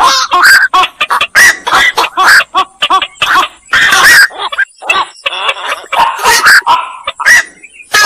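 Black-crowned night herons calling: short, harsh, loud calls in quick succession, about two to three a second.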